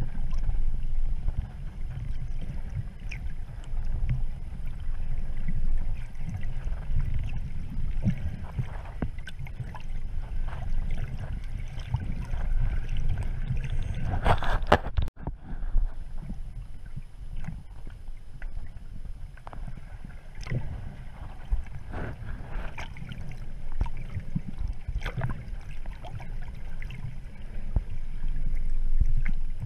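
Muffled underwater rumble of water moving around a submerged camera, with scattered faint clicks and crackles. About halfway through there is a brief louder rush that cuts off abruptly.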